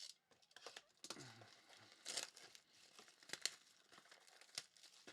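Faint crinkling and tearing of plastic trading card packaging being opened, in short scattered rustles and small clicks.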